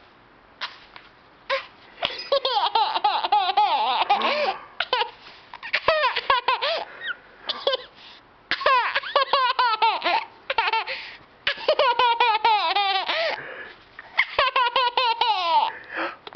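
A baby laughing: repeated bouts of rapid, high-pitched giggles, with short breaks for breath between them.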